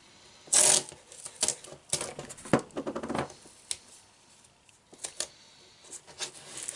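Plastic film and paper adhesive tape being handled as a plastic drumhead is stretched over the mouth of a can and taped down. There is a loud noisy rasp about half a second in, then lighter crinkles, scrapes and clicks at uneven intervals.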